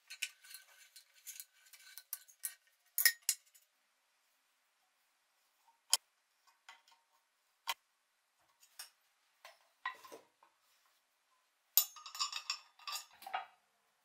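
Adjustable wrench clinking against a nut and the steel mounting plate as a bolt is tightened. Quick metal clinks come in a flurry at the start and again near the end, with a few single clinks in between.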